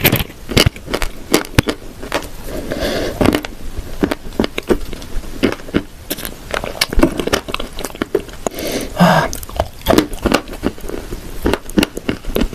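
Close-up crunching and chewing of dry clay and shortbread cookies: many sharp, irregular crackles and bites, with a couple of softer, wetter chewing sounds.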